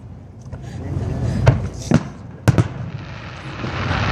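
Aerial fireworks bursting: several sharp bangs spaced about half a second apart, then a swelling rush of noise near the end.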